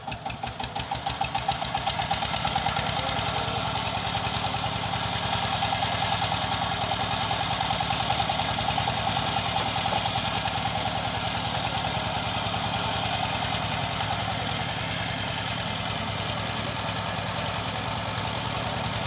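Engine running with a rapid, even knocking beat, picking up speed and getting louder over the first two seconds, then running steadily.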